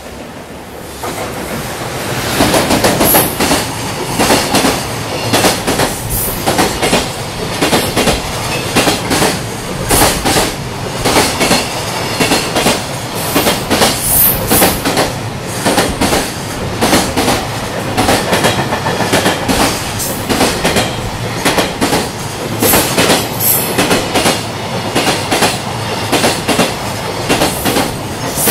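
A freight container train, an electric locomotive pulling a long string of container wagons, passing at speed. The sound builds in the first two seconds as the locomotive arrives, then the wagons' wheels clatter over the rail joints in a steady, continuous rhythm.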